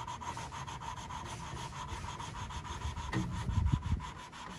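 A valve being lapped by hand against its seat in a 1931 Ford Model A engine block, with the lapping tool spun back and forth and valve grinding compound between the faces: a quick rhythmic gritty rasp, several strokes a second. A few low bumps come about three seconds in.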